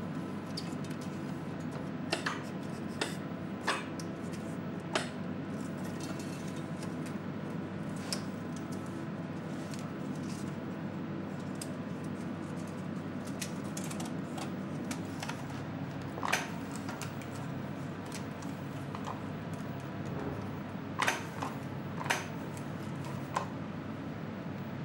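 Film reels being seated on a telecine machine's spindles and film threaded through its rollers: scattered sharp clicks and clanks of reel and metal parts, the loudest about two-thirds of the way through, over a steady low machine hum.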